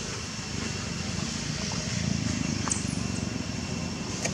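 Outdoor ambience: a low rumble like distant motor traffic, swelling about halfway through, over a faint steady high hum, with two short high chirps.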